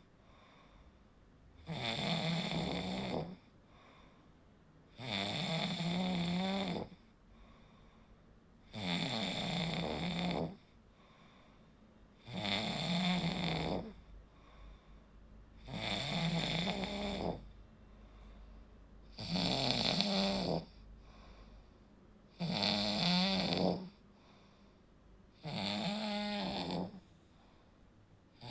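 A person snoring in a steady rhythm: eight snores about three and a half seconds apart, each lasting about a second and a half, with quiet gaps between. The throat tissue vibrates as airflow is partly blocked during sleep.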